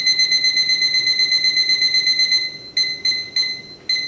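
Digital kitchen timer beeping as it is set: a rapid run of high beeps for about two and a half seconds, then single beeps about three a second as its buttons are pressed.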